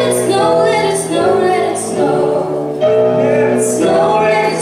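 A young woman and a young man singing a duet into handheld microphones, with held, steady sung notes.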